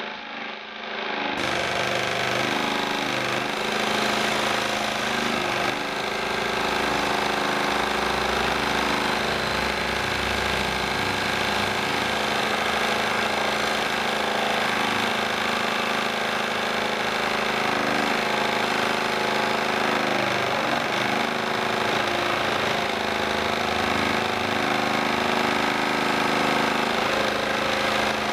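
Homemade scroll saw, driven by a recycled electric fan motor, running steadily as its blade cuts a small block of wood.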